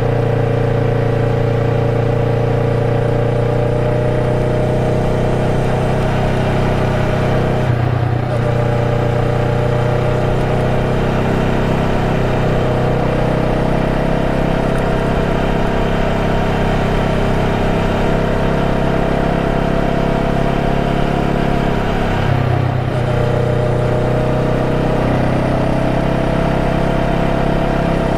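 Honda Rebel 500's parallel-twin engine running steadily under way. Its note breaks off briefly twice, about eight seconds in and again about 22 seconds in, as the rider shifts gear.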